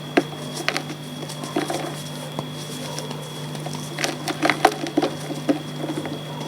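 Reformed gym chalk being crumbled and crushed, a run of irregular soft cracks and crunches. A steady low hum runs underneath.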